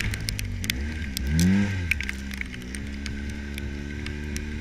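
Side-by-side UTV engine running under way, revving up and dropping back about a second in, then holding a steady pitch. The cage and body rattle and click over the snow.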